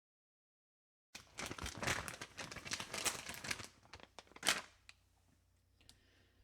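Crinkling and rustling of something being handled, with many small crackles and one sharper click about four and a half seconds in.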